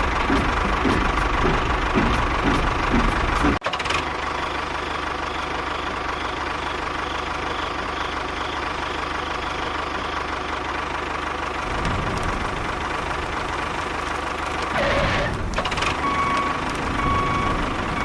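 A small engine running, with a regular knocking beat for the first few seconds. It then cuts abruptly to a steadier running hum.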